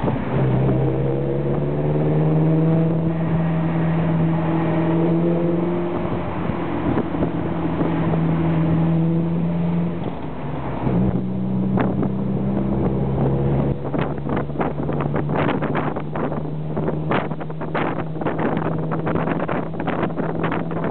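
Alfa Romeo Spider engine running at a steady speed, its note holding level apart from a brief shift about ten seconds in. From about fourteen seconds on, a rapid irregular crackle joins the engine note.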